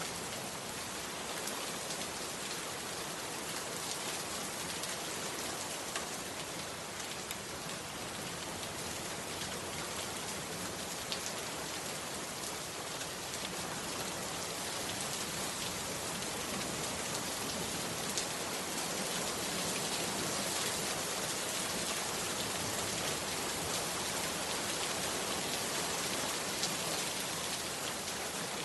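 Heavy rain falling steadily, a dense even hiss with scattered sharper drop ticks.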